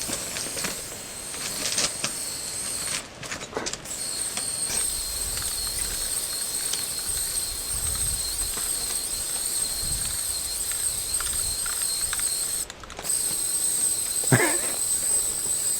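Aerosol spray-paint can spraying in long steady blasts: a loud hiss with a high whistle from the nozzle, sounding like a missile. It stops briefly about three seconds in and again near the end.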